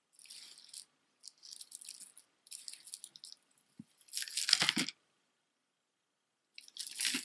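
Strands of a beaded tassel necklace, wood beads and seed beads, rattling and clicking as it is handled and gathered up, in several short bursts. The loudest burst, about four and a half seconds in, comes as the necklace is swept off the cloth, with another shortly before the end.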